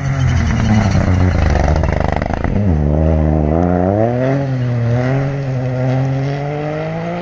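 Rally car engine at high revs as it passes on a gravel stage, with gravel spray in the first half. The revs drop sharply about two and a half seconds in, then climb, dip once at a gear change, and climb again as it accelerates away.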